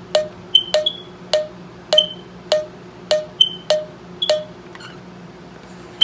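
Smoke alarms on a low-battery test, giving short clicking chirps. A lower-pitched chirp repeats nearly twice a second, eight times, with higher, sharper chirps now and then in between. The chirping stops after about four and a half seconds, and one high chirp sounds at the very end.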